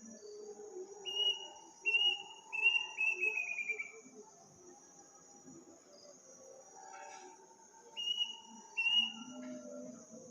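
A night bird's high whistled calls: three short clear notes about a second apart, the last running into a falling trill, then a pause and two more short notes near the end. A steady high drone of crickets runs underneath.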